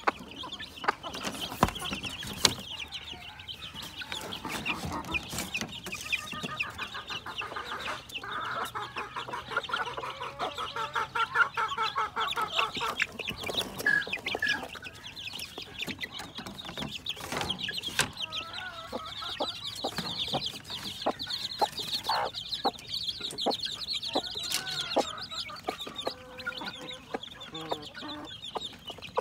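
A flock of native chickens: many young chicks peeping continuously and high-pitched, with hens clucking in rapid runs, the strongest from about a third of the way in. Scattered sharp clicks come through the calls.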